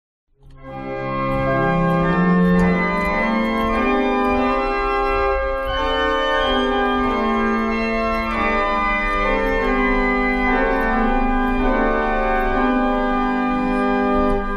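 Church pipe organ played on the great manual with its loud stops drawn: a run of full, sustained chords that change every second or two, starting about half a second in. The last chord is released near the end and dies away in the building's reverberation.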